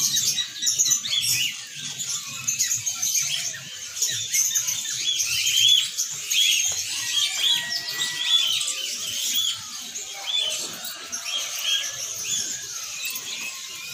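Many caged songbirds chirping and calling at once, a dense chorus of short, high, overlapping chirps.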